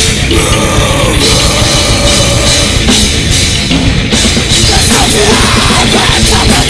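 Death metal band playing live in a small club: distorted electric guitars and drum kit in a loud, dense, continuous wall of sound, with the vocalist shouting into the microphone toward the end.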